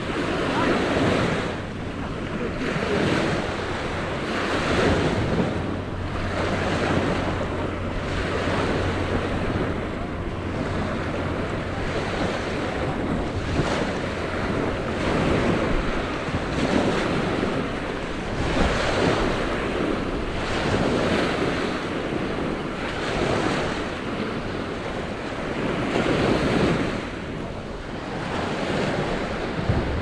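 Small waves washing onto a sandy beach, with wind buffeting the microphone, the noise swelling and easing every couple of seconds. A low steady hum lies underneath for about the first twelve seconds.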